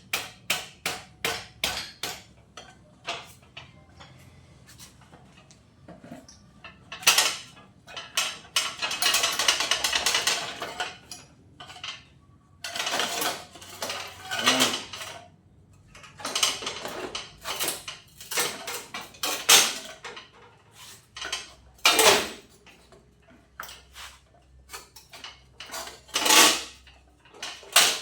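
Metal tools and motorcycle parts clinking and clanking while a front fork assembly is taken apart: a run of quick sharp clicks at the start, several scraping, rattling stretches of a second or two, and a few loud single knocks later on.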